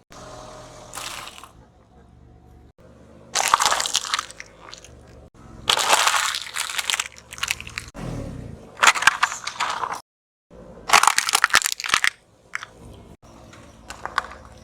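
Crunching and cracking of objects crushed under a car tyre, in about five loud bursts of a second or so each with short gaps, and a few sharp cracks near the end.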